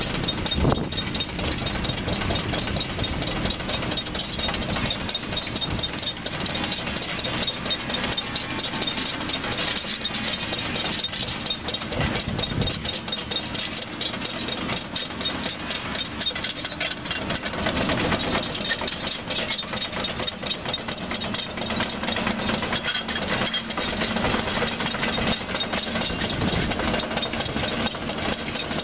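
Caterpillar 320D2 hydraulic excavator's diesel engine running steadily, with a fast, even clatter throughout.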